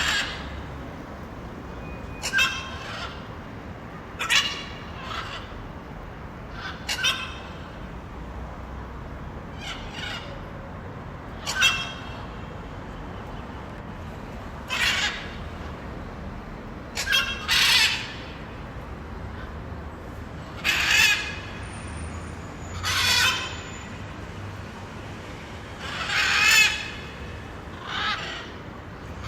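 Blue-and-yellow macaw giving a series of about a dozen loud, harsh squawks, each under a second long and spaced a couple of seconds apart, the longest near the end, over a steady low background noise.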